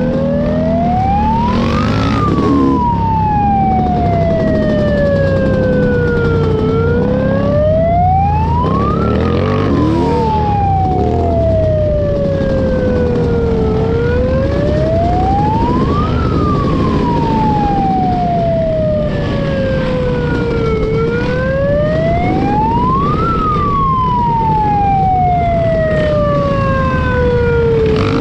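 Wailing siren, rising quickly and falling slowly in a repeating cycle about every seven seconds, with four peaks, over a steady low rumble.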